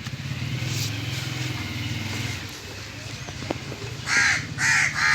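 Crow cawing: a run of loud, harsh caws about half a second each, starting about four seconds in, over a low steady hum.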